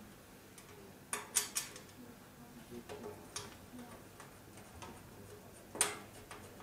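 A few sharp clicks and taps of steel drawer parts being handled and fitted together by hand. The loudest come a little over a second in and near the end.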